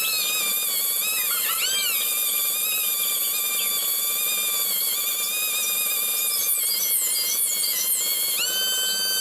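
High-speed rotary grinder porting a motorcycle engine's cylinder block, a steady high whine whose pitch dips briefly under load a couple of seconds in and rises again near the end, with scratchy grinding of the bit against metal.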